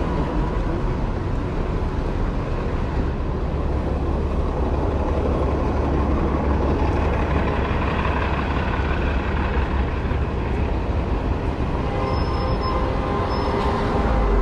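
City street traffic: a steady low rumble of vehicle engines and tyres going by. A pitched hum from a vehicle joins near the end.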